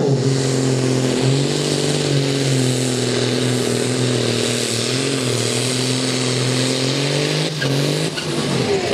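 Turbocharged six-cylinder diesel of a white Case 2090 pulling tractor working flat out under full load as it drags the weight sled, a steady heavy engine note with small dips in pitch. The note breaks up about a second before the end.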